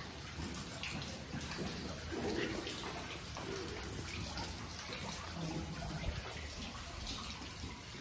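Water running steadily in a cave, a constant rush with a few faint drips.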